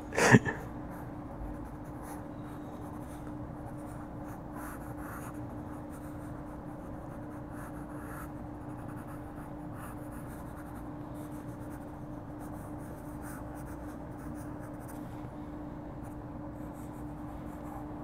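Palomino Blackwing graphite pencil sketching on sketchbook paper: soft, faint scratching strokes of shading and line work, over a steady low hum. A brief loud burst comes right at the start.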